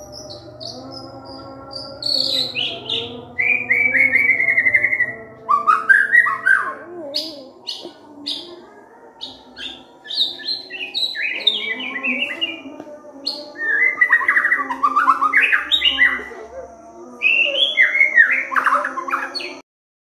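White-rumped shama (murai batu) singing a varied song of whistled phrases, falling trills and quick up-and-down sweeps, with short pauses between phrases. It cuts off suddenly near the end.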